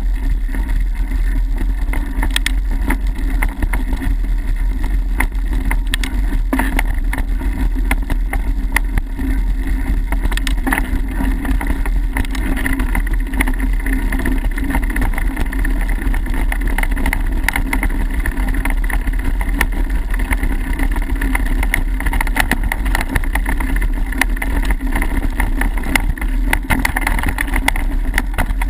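A mountain bike ridden over a dirt trail, heard from a camera mounted on the bike or rider: a steady loud rumble of the bike over the ground, with frequent short rattles and knocks.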